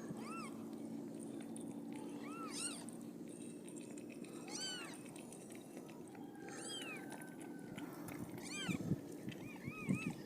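Newborn kittens mewing: short, high-pitched squeaky mews every couple of seconds, with several close together near the end. A faint steady hum sits underneath in the first few seconds.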